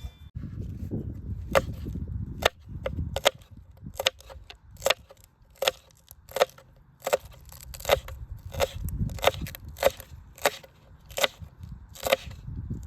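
Steady chopping with a blade on wood, one stroke a little more than once a second.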